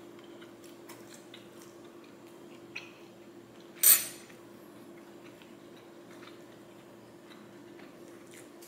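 Metal fork clicking and scraping in a plastic takeout container, with one loud, sharp clatter about four seconds in. A faint steady hum runs underneath.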